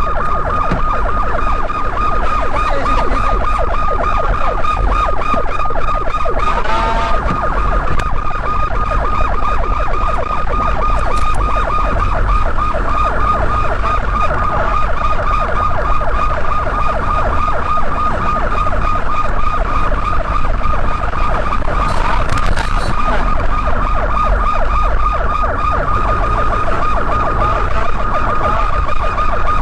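Police car sirens sounding in a fast, steady warble throughout, over a low rumble of road and engine noise.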